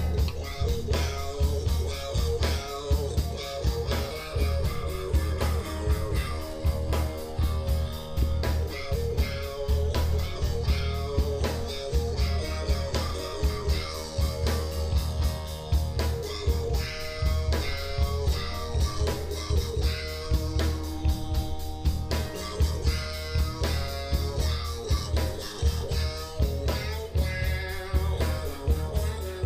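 Live rock band playing: electric guitar over bass guitar and a drum kit, with a steady beat throughout.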